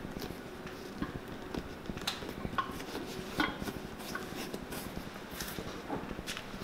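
Fingers pressing and rubbing the damp leather sole edge of a cowboy boot, folding the wetted channel lip back down over fresh stitching, with faint scattered ticks and light taps of leather being handled.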